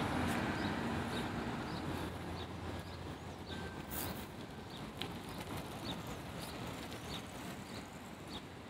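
Traffic noise from a car driving away fades over the first few seconds, under short high bird chirps repeated at a steady pace, a little more than one a second.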